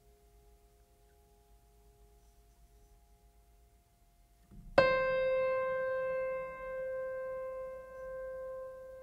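Background piano music. A faint held chord fades away, then about five seconds in a single loud note is struck and rings on, slowly dying away.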